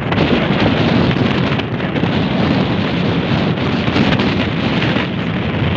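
Strong wind buffeting the microphone: a loud, steady rush with a low rumble that swells and eases slightly with the gusts.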